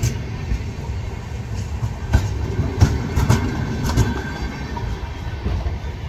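Passenger train coaches rolling past close by: steel wheels on the rails give a steady low rumble, with a string of irregular clacks and knocks over the rail joints.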